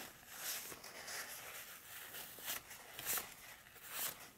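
Paper towel rustling and crinkling faintly as it wipes excess glue off a freshly fletched arrow, with a few brief crisp crackles.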